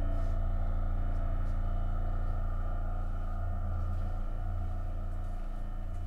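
Low, steady synthesized drone of held tones, an ambient sound-design bed for the film, slowly fading.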